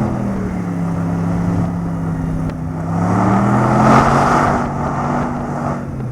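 Car engine revving as the car tries to back out of slushy snow it has sunk into and is stuck in. Its pitch dips, then rises to a peak about four seconds in, with a rushing noise swelling along with the revs, then settles.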